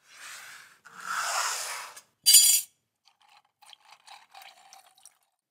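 Three hand scraping or rubbing strokes on a workpiece, the last one short and the loudest, followed by a run of light clicks and taps.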